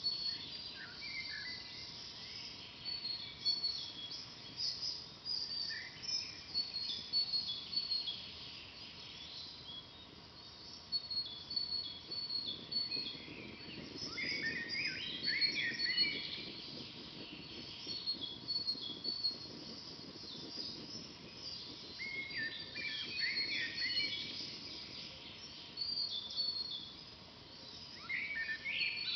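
Forest songbirds singing: many short, high chirps and repeated notes, with fuller trilling phrases about halfway through and again near the end, over a faint steady background hiss.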